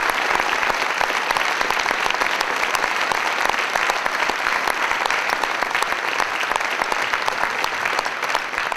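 Concert audience applauding, a dense, even clapping that begins to fade at the very end.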